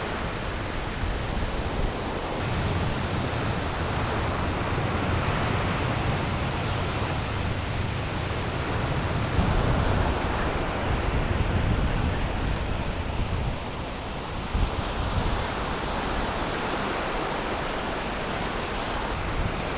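Steady wash of surf and wind at the beach, with a low rumble that swells for several seconds in the middle.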